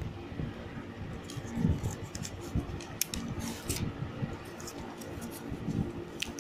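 Hands handling packaging: soft irregular knocks of a small cardboard box being moved, and brief crinkles of plastic wrapping around a third of the way in and again near the end.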